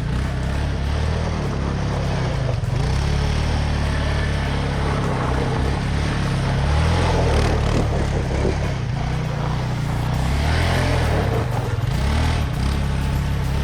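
Small motor vehicle engine running steadily, with a low, even rumble.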